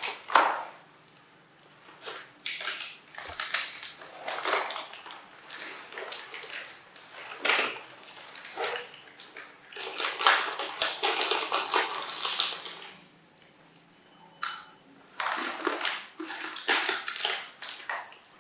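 Plastic foil snack packets crinkling and rustling in irregular short bursts as they are handled and torn open, with pauses between.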